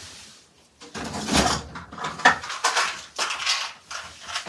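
Irregular clattering and rustling of small objects being handled, starting about a second in.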